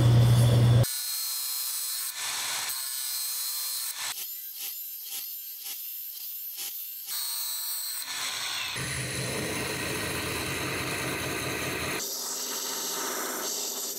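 Belt grinder grinding a forged Damascus steel billet: a steady abrasive rasp, broken in the middle into a run of short strokes about three a second, then running steadily again. A loud low hum plays for the first second before cutting off.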